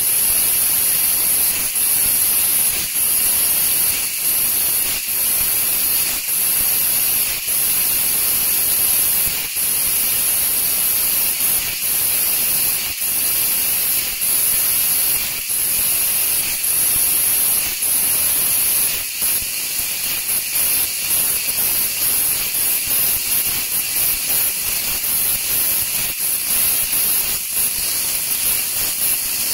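Fiber laser cutting machine cutting 1.2 mm copper sheet: a steady high hiss of gas at the cutting head, broken by short gaps about every second or so. From about two-thirds of the way in, the gaps come more often.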